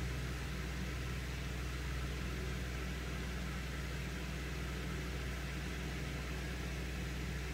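A steady low hum with an even hiss of background noise, unchanging throughout.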